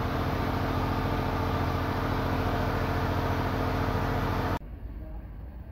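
A fan running with a steady whir and low hum, which cuts off abruptly about four and a half seconds in, leaving faint room noise.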